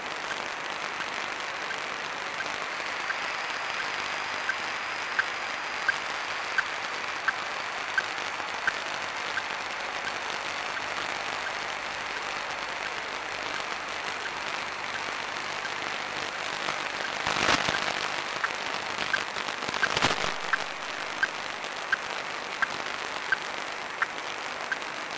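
VHF wildlife-tracking receiver output: steady static hiss with short regular beeps from a radio transmitter tag, about one every 0.7 seconds. The beeps swell and fade as the received signal strength changes. Two louder rushes of noise come about two-thirds of the way through.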